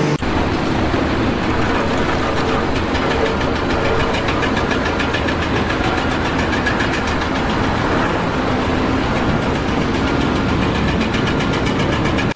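Loud engine-driven machinery running steadily, with a fast, even rattle.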